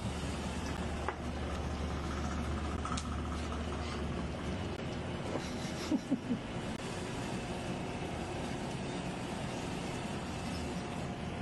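Steady hiss of pancakes cooking in a pan over a gas burner, with a low hum under it for the first half. A few light clicks, three in quick succession about six seconds in.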